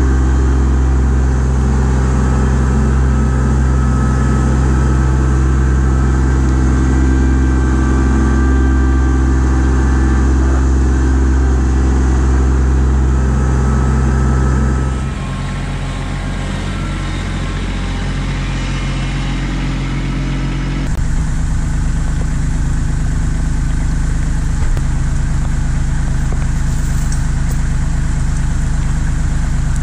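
Kubota LX2610 compact tractor's three-cylinder diesel engine running steadily at working revs while the root rake grapple digs at a stump. About halfway through the sound drops and changes. A few seconds later it gives way to the engine idling steadily.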